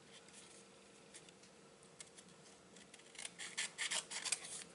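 Small scissors snipping through card in short, crisp cuts: a few faint snips at first, then a quick run of them in the last second and a half.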